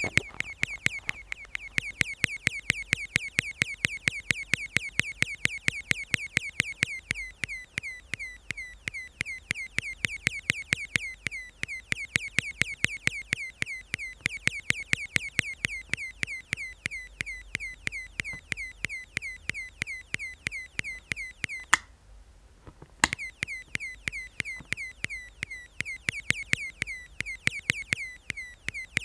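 Astable multivibrator circuit sounding through a speaker: a fast, even train of clicky electronic chirps, each a short tone dipping slightly in pitch, several a second. It cuts out for about a second near the three-quarter mark, with a click as it stops and another as it starts again.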